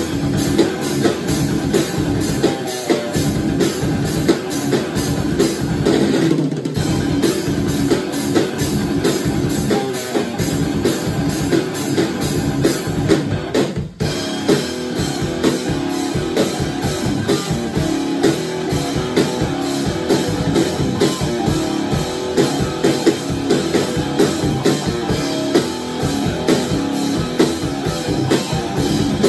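Rock band playing: a Gretsch drum kit with bass drum and cymbals driving a rock beat under guitar. The music stops sharply for a moment about halfway through, then carries on.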